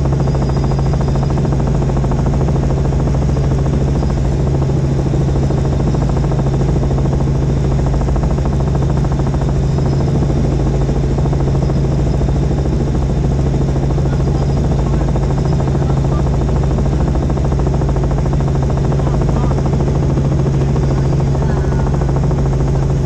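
Helicopter in flight: steady rotor and engine noise with a strong low hum and a fast, even chopping that doesn't let up.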